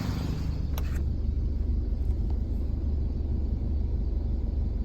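1999 Chevy Metro engine idling with a steady low rumble, and a short click under a second in.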